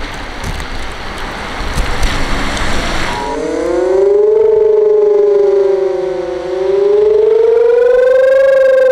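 A broad rushing noise with a few knocks, then about three seconds in the fire-station siren starts up. Its wail climbs from low, dips slightly and rises again, growing loud: the start of the rising-and-falling warning tone sounded on Germany's warning day.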